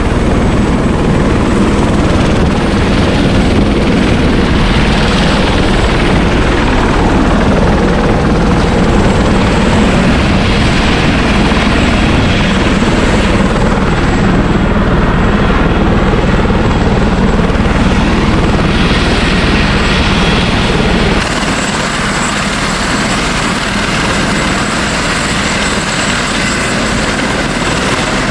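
Tour helicopters running on the helipads: a loud, steady turbine and rotor rumble. About three quarters of the way through the sound changes abruptly, the deepest rumble dropping away and a higher hiss coming in.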